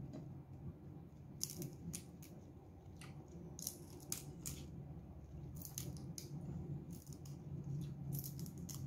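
Crisp, irregular crunching of raw leafy greens (bok choy or spinach) being chewed close to the microphone, in several short clusters, over a steady low hum.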